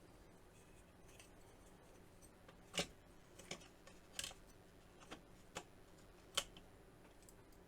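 Six or so sharp clicks and taps, irregularly spaced, over near silence: small parts being handled while a faulty graphics card cooling fan is swapped for a known good one.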